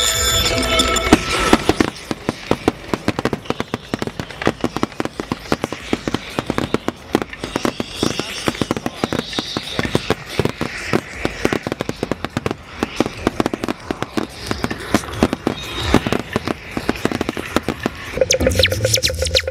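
Fireworks crackling and popping in a dense, irregular run of sharp reports. Music fades out about a second and a half in and comes back near the end.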